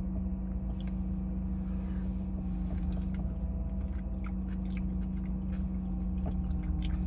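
A person chewing a mouthful of rice and meat, with faint scattered mouth clicks, over the steady low hum of a car idling.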